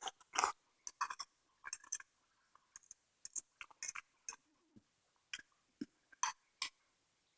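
Close-up mouth sounds of someone chewing food: a string of faint, irregular wet clicks and smacks.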